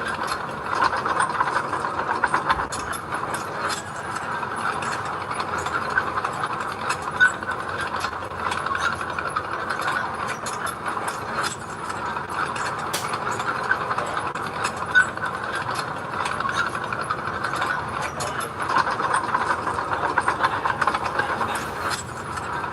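Heavy earthmoving machinery at work: a diesel engine running steadily with a dense, continuous metallic rattling and clatter.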